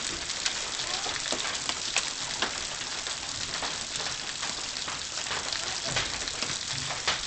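Hail storm: a steady hiss of heavy rain with hailstones striking hard surfaces, sharp knocks standing out every second or so.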